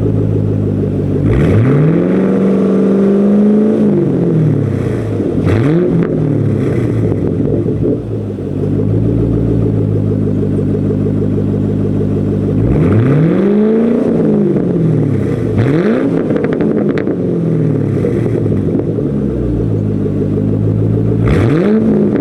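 2010 Mustang GT's 4.6 L V8 through a Roush cat-back exhaust with two resonators, idling and revved about five times: a rev held for a couple of seconds near the start, another in the middle, and quick blips between, each falling back to idle.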